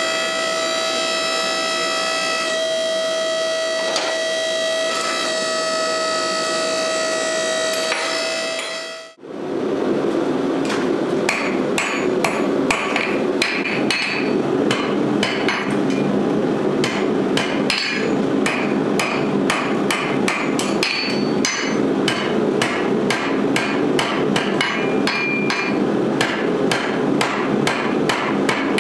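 Held musical tones for about the first third, then a short break. After it, a blacksmith's hammer strikes hot steel on an anvil in a fast, steady run of blows, shaping the eye of a forged bottle opener over the anvil horn.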